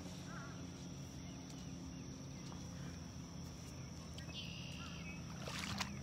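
Quiet lakeshore ambience: a steady high-pitched insect drone over a low hum, with a few faint chirps. Near the end comes a brief scraping rustle as the phone is handled.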